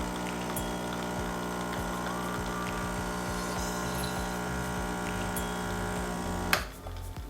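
Home espresso machine's pump buzzing steadily as it pushes water through the coffee to brew a shot, then cutting off with a sharp click about six and a half seconds in.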